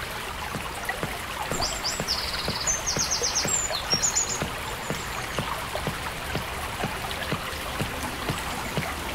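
River water trickling and babbling, with small irregular splashes throughout. A bird sings several quick, high trills between about one and a half and four and a half seconds in.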